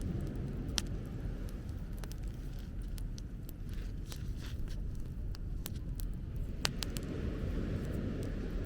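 Wood fire crackling, with sharp pops at irregular intervals over a steady low rumble.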